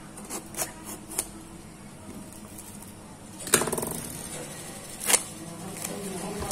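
Clear plastic shrink-wrap being slit with a utility knife and peeled off a cardboard phone box. A few light clicks and scratches at first, then a loud crackling crinkle of the film about three and a half seconds in, and another sharp crackle about five seconds in.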